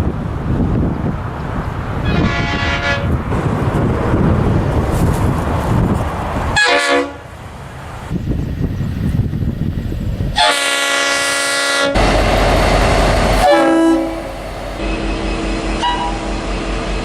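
Train horns sounding in several separate blasts, each a chord of notes, the longest and loudest about two thirds of the way in, over the rumble of trains running. The sound changes abruptly between blasts.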